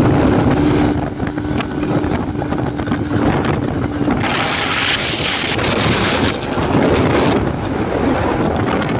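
Suzuki X7's two-stroke twin engine running after a long lay-up, with a steady note for about four seconds, then turning harsher and hissier for the rest of the time.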